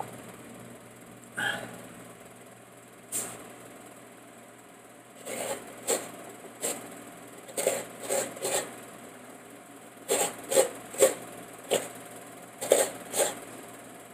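Coconut halves being scraped and knocked against the serrated blade of a stool-mounted coconut grater (kudkuran): short scraping sounds in irregular clusters, most of them in the second half, over a steady low hum.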